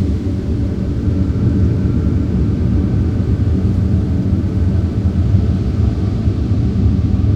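A steady, deep rumbling drone, with faint held tones higher up.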